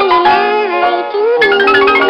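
Cartoon score music: a melody line that slides between notes over a busy accompaniment.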